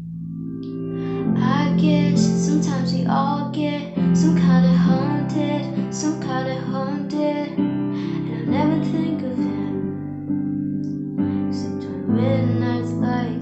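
A woman singing, accompanied by guitar.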